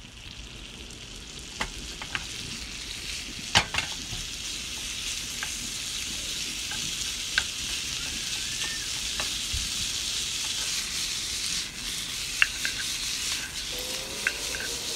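Meat and potato chunks sizzling in a frying pan, stirred with a wooden spatula that clicks and knocks against the pan now and then. The sizzle grows louder over the first few seconds and then holds steady.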